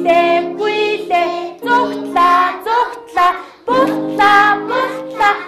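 Young children singing a children's song together with a woman, accompanied by an electronic keyboard playing held chords, the singing coming in short phrases.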